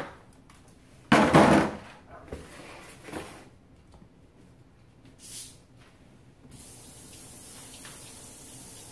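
A loud clatter about a second in and a few softer knocks as plastic packaging is moved about on the counter, then a kitchen tap starts running steadily about six and a half seconds in, filling a container with water.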